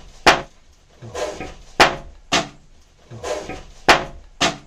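Sharp wooden knocks on a shelf right beside a reared Indian cobra, five in all in three groups, each group led by a short rushing hiss.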